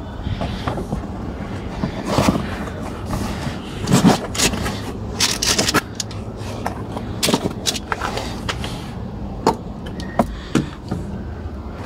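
Irregular scraping and knocking of objects being handled, over a faint steady hum.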